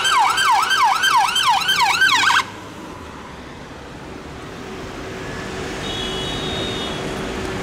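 Emergency vehicle siren on a fast yelp, sweeping up and down about three times a second, that cuts off abruptly about two seconds in. Then city street traffic noise with a steady low hum, slowly growing louder.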